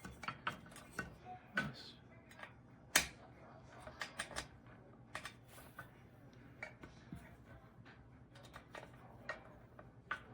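Irregular small metallic clicks and taps as a loose Phillips screwdriver bit is turned by hand to drive the screws holding a ceiling fan's canopy, with the loudest click about three seconds in.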